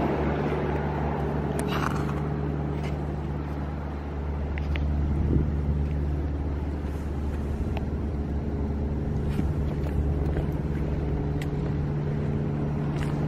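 Goldoni Joker 10S+ walk-behind tractor's 8.5 hp petrol engine idling steadily, a low even hum with a few faint clicks over it.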